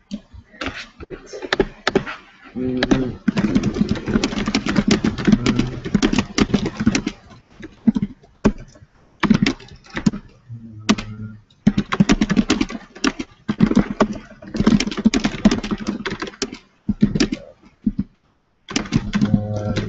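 Typing on a computer keyboard close to the microphone: dense runs of key clicks with short pauses between them.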